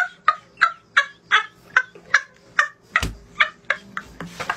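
A boy laughing hard in short, even bursts, about three a second, that stop a little before four seconds in. A single thump comes about three seconds in.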